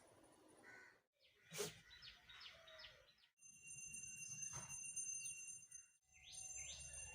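Faint bird chirping: quick runs of short chirps over a low background hiss, broken by abrupt cuts about one, three and six seconds in.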